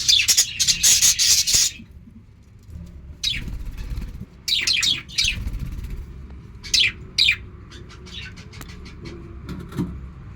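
Lovebirds calling: a loud harsh screech over the first second and a half, then short chirps in small clusters.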